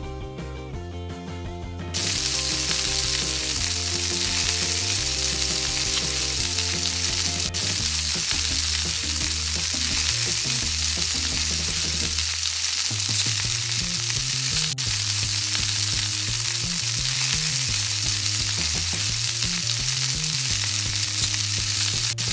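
Steady frying sizzle that comes in suddenly about two seconds in, a sound effect laid over a toy wok being stirred, over light background music with a plodding low tune.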